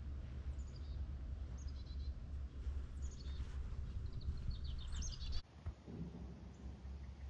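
Birds calling in short, high chirping phrases, repeated several times, over a steady low rumble that drops off abruptly about five seconds in.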